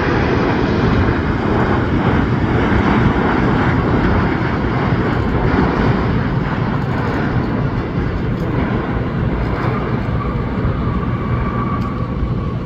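Jet engine noise from an Air Canada Boeing 787 airliner landing, loud and steady as it touches down and rolls out along the runway. A faint whine comes in near the end.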